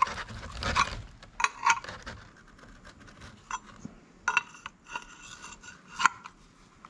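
A wrench clinking against a barbed hose fitting and a metal transmission filter mount as the fitting is tightened: scattered sharp metallic clinks, some ringing briefly, with scraping between them and the loudest clink about six seconds in.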